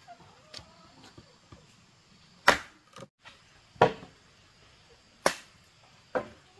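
Four sharp blows of a hand tool striking wood, the first about two and a half seconds in and the rest roughly a second apart, with a few lighter taps before them.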